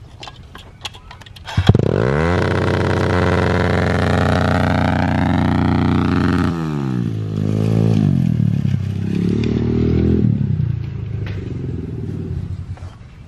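Pit bike engine revving hard from about a second and a half in after a few light clicks, held high for several seconds. It then drops and revs up and down again as the bike rides away, fading near the end.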